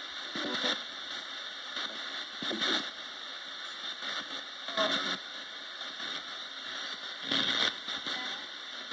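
Roberts radio static: a steady hiss broken four times, about every two and a half seconds, by short bursts of garbled broadcast sound as the radio is swept between stations for spirit-box listening.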